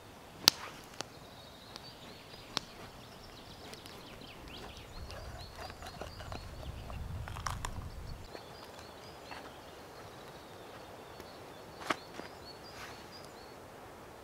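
Kitchen knife cutting bell peppers and a tomato over a small wooden dish, with a few sharp knocks of the blade against the wood, the loudest about half a second in. Birds chirp in the background, and a low rumble swells for a few seconds in the middle.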